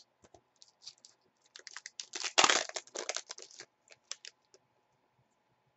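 Foil trading-card pack wrapper crinkling and tearing as it is opened by hand: a run of crackles that is loudest about two and a half seconds in and dies away after about four seconds.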